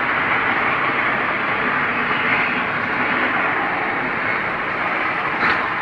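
Loud, steady roaring noise from the sky, which the people hearing it find frightening and say seems to come from just overhead. Its source is unexplained.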